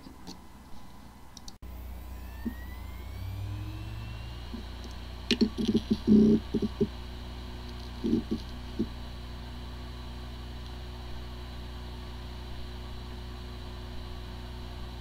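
A hard drive spinning up, its pitch rising over a couple of seconds from about a second and a half in, then running with a steady whir and hum, with a few short louder noises between about five and nine seconds in. The disks spin but the drive is not accessible, which points to possible disk firmware corruption.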